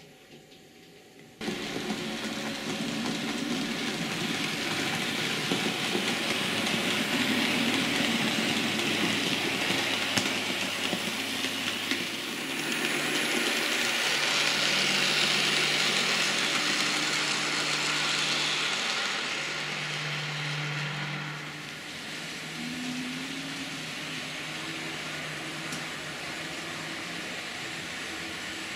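TT-scale model trains running on the layout: a steady rushing of metal wheels on track with a low motor hum. It starts suddenly about a second and a half in, is loudest midway, and eases off a little after about twenty seconds.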